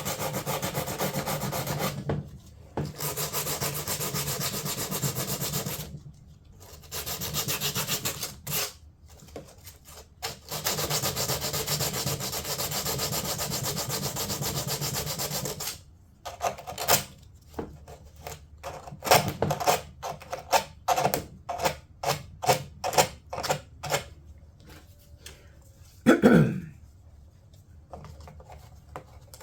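Sandpaper worked by hand over the edges of a fibreglass door panel to round off sharp edges and splinters. Long continuous scrubbing passes give way, about halfway through, to quick short strokes of about two or three a second. One brief sweeping sound comes near the end.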